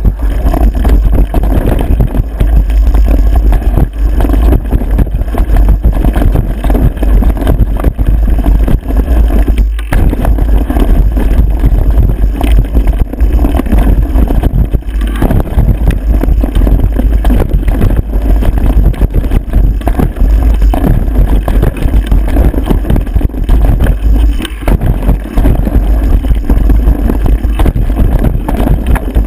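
Loud, continuous wind buffeting on the microphone mixed with rattling and jolting from a camera riding fast down a rough dirt trail, most likely mounted on a mountain bike. There is no engine sound. The noise drops out briefly about ten seconds in and again near the end.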